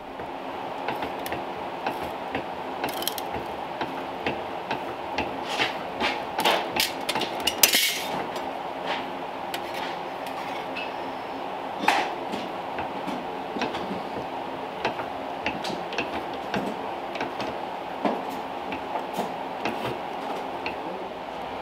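Sheet steel being cut on a hand-lever bench shear: irregular sharp metallic clicks and snaps, the loudest about a third of the way in, over a steady mechanical hum.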